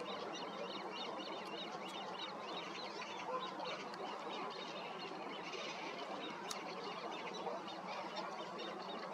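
Waterbirds on a lake calling: a steady chorus of many short, high calls overlapping throughout, with a few louder ones standing out.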